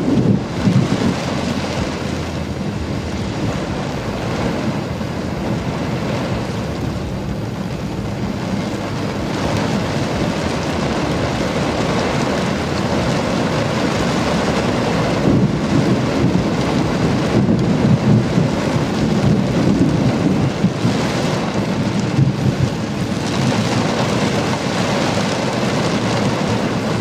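Thunderstorm: steady rain falling, with rumbling thunder swelling now and then.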